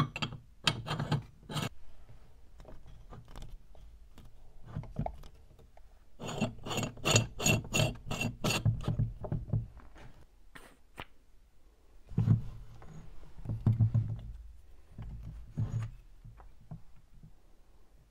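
Hand reassembly of a restored cast-iron meat grinder: the front ring nut is screwed onto the barrel threads, with metal clicking and scraping and the body knocking on the bench. The sound comes in three bursts, the middle one a quick run of clicks.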